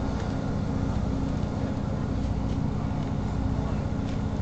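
Cabin sound of a moving Class 158 diesel multiple unit: a steady low drone from its underfloor diesel engine, mixed with wheel and rail noise and a few faint ticks.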